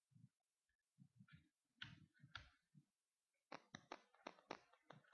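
Faint knocks and taps of hands and a screwdriver on a laptop's plastic screen bezel. About three and a half seconds in, a quick run of light clicks begins, about six a second, as screws are driven back into the bezel.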